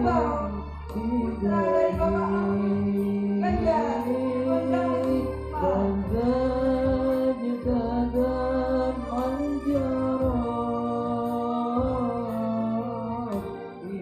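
A male student singing a slow, drawn-out melody over instrumental accompaniment with a steady low bass.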